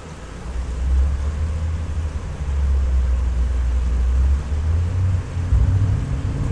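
A loud low rumble sets in suddenly at the start and keeps going unevenly.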